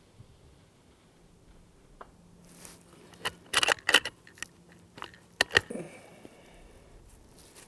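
Bolt of a Ruger Precision Rifle being cycled after a shot: a quick series of sharp metallic clicks and clacks about three to six seconds in, as the bolt is lifted, drawn back and run home to chamber the next 6.5 Creedmoor round.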